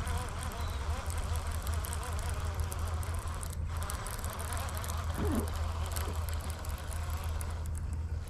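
Baitcasting reel cranked steadily to retrieve a lure, over a steady low rumble.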